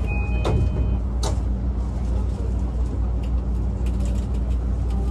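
An E235-1000 commuter train standing at a platform: a high repeating chime cuts off about a second in, two sharp knocks follow in the first second and a half, and then the train's steady low equipment hum continues with a few faint clicks.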